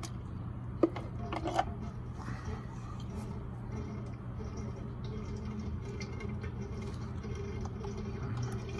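Steady low hum, with a sharp click about a second in and a few light knocks just after.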